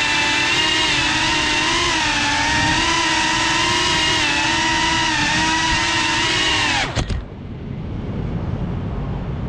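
FPV racing drone's brushless motors and propellers whining, the pitch rising and falling with the throttle, heard from the GoPro mounted on the drone. The whine cuts off suddenly about seven seconds in as the drone sets down and the motors stop, leaving a low background rumble.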